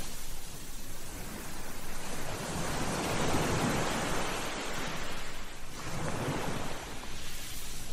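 Sea surf washing onto a shore and drawing back, the wash swelling and easing in slow surges: one builds about two seconds in, and another near the end.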